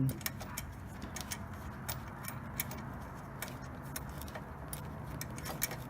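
Ratchet wrench clicking in irregular runs as a 10 mm headlight bolt is worked loose, over a faint low hum.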